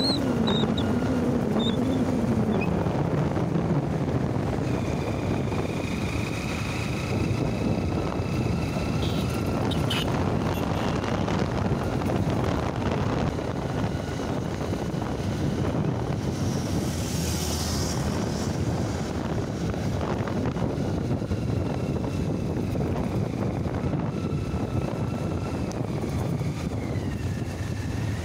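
Steady wind rushing over the microphone, with motorcycle engine and road noise, recorded from a moving motorcycle.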